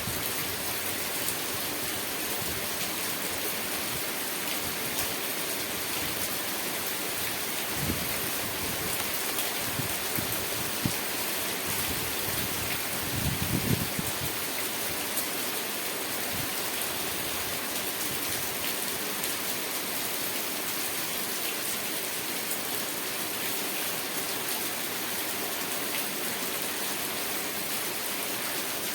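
Steady rain falling, a constant hiss with the patter of individual drops. There are brief low rumbles about eight seconds in and again near the middle.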